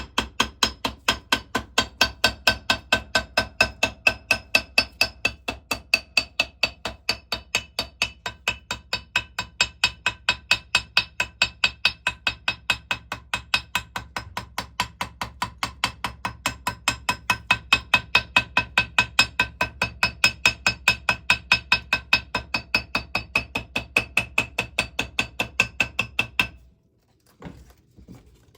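Hammer tapping steadily at about three light blows a second, each with a short metallic ring, cutting gasket material against the sharp edge of a water pump part; the tapping stops near the end.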